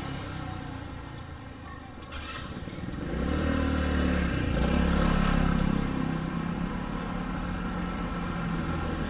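A motor vehicle's engine passing close by on the street, swelling about three seconds in and easing off after about six seconds.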